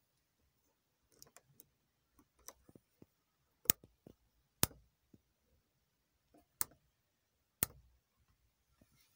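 Plastic push switches on a 1998 Toyota RAV4's overhead dome-light console clicking as they are pressed: four sharp clicks, with fainter clicks and taps before them.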